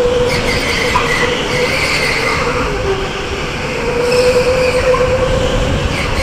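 Electric go-kart at racing speed: the motor gives a steady whine while the tyres squeal on and off through the corners, over a rough rush of wind and rumble on the helmet-mounted microphone.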